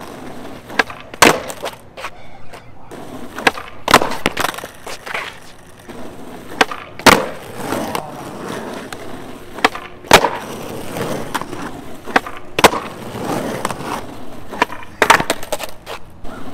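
Skateboard being popped, flipped and landing hard on asphalt over and over in repeated nollie varial kickflip attempts. Sharp board impacts come about every three seconds, with smaller clicks, shoe scuffs and the wheels rolling and scraping on the pavement between them.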